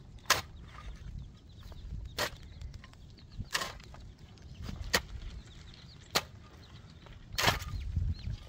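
Metal shovel scraping and striking stony ground in repeated strokes, roughly one every second and a half, some short hits and a couple of longer scrapes. Chicks peep faintly in between.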